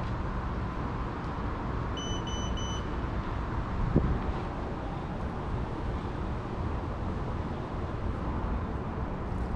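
Steady low rumbling noise, with three quick high-pitched beeps about two seconds in and a single sharp thump about four seconds in.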